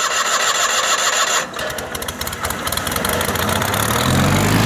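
Choked small gasoline engine, salvaged from a welder and powering a homemade sawmill, cranked by its electric starter with a whine, then sputtering and catching about four seconds in to run steadily.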